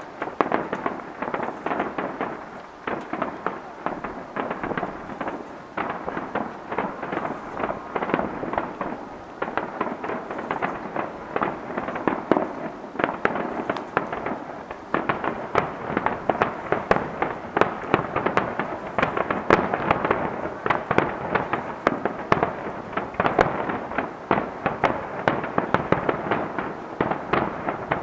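Distant aerial firework shells bursting in a rapid, unbroken barrage of overlapping bangs during a fireworks finale, growing louder from about halfway through.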